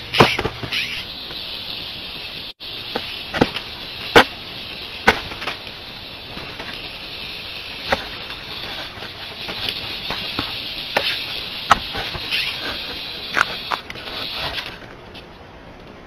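Steady high insect chorus with sharp clicks and taps scattered through it; the chorus cuts off about a second before the end.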